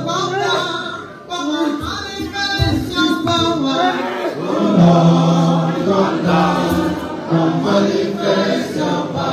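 A group of voices singing together like a choir, with several long held notes.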